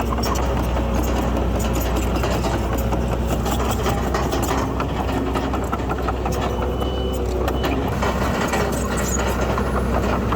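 Diesel engine of heavy earthmoving machinery running steadily at an even level, with scattered light clicks and knocks.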